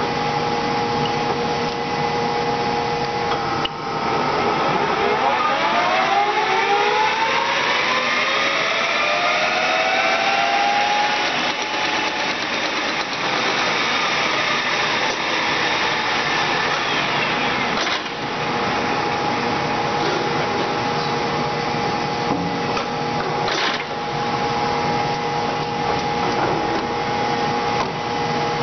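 Acer 24160G gap-bed engine lathe with a 15 HP motor: a steady machine hum, then a few seconds in the spindle is engaged and the geared headstock whines, rising in pitch as the 4-jaw chuck spins up to speed, and then runs steadily. About two-thirds of the way through a click as the spindle is stopped, after which the steady motor hum carries on.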